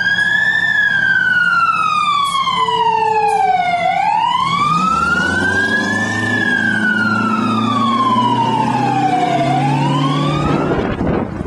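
Fire engine siren wailing, slowly rising and falling in pitch in cycles of about five to six seconds. The truck's engine runs underneath and revs up about halfway through as it drives off.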